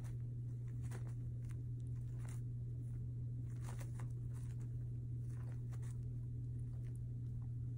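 Steady low hum under faint, scattered rustling and crunching from a guinea pig rooting and nibbling in hay on fleece bedding, thickest a little past halfway through.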